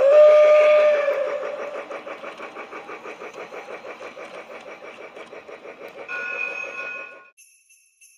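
Toy Polar Express train set running on its track: its sound unit plays a steady steam chuffing at about five beats a second that fades away, with a loud whistle blast at the start and a short second whistle chord about six seconds in. Near the end a small sleigh bell jingles in a slow rhythm.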